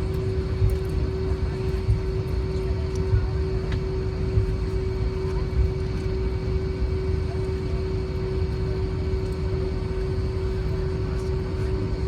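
Airliner cabin noise at takeoff: the engines run with a steady drone over a heavy low rumble.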